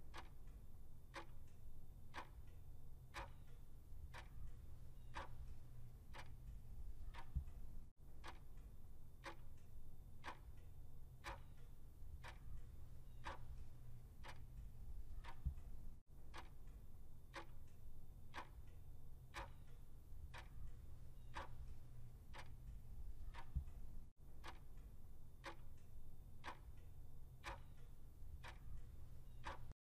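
Clock-ticking sound effect counting down the answer time, about one tick a second, over a faint low rumble.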